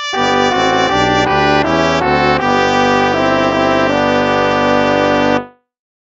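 Instrumental hymn played by brass, trumpets and trombones: a run of short chords, then a long held chord that cuts off about five and a half seconds in.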